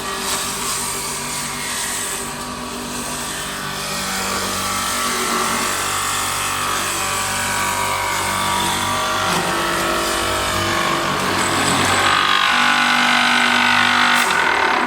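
Wood copy lathe running, a steady mechanical whir with several held tones that grows louder toward the end.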